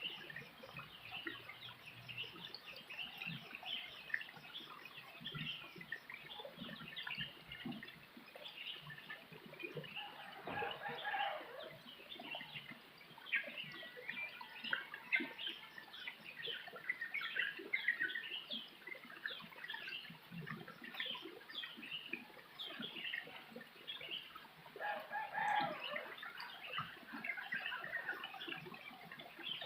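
Rural farmyard soundscape: chickens clucking and many small birds chirping throughout, with a rooster crowing twice, about a third of the way in and again near the end.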